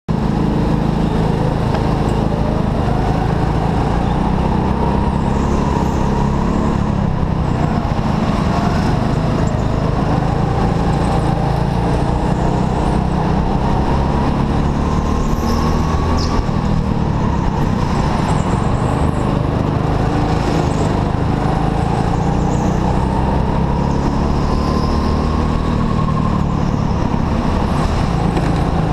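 Indoor go-kart running flat out around the track: a steady loud drone with a motor note that climbs and falls in pitch with speed through the straights and corners.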